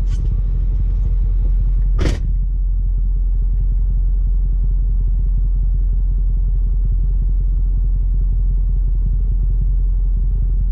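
Ford F450's Power Stroke turbodiesel idling, a steady low rumble heard inside the cab. A single sharp knock sounds about two seconds in.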